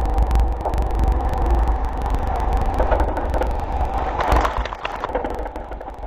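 Small Coast Guard rescue boat running through heavy surf: a steady low rumble of wind and engine on the onboard microphone over rushing, crackling water and spray. A louder surge of breaking water comes about four seconds in.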